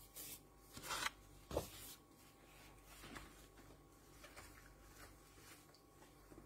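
Quiet rustling and rubbing from gloved hands handling spring roll wrappers and filling, with a few short rustles in the first two seconds and fainter handling sounds after, over a faint steady hum.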